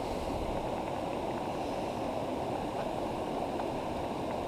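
Shallow river water running steadily over rocks.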